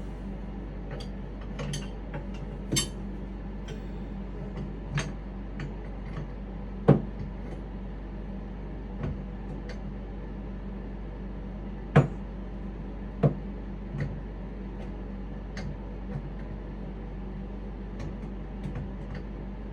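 Scattered clinks and knocks of tools and plumbing fittings being handled while sink drain nuts are fitted and tightened, a few sharper knocks in the middle, over a steady low hum.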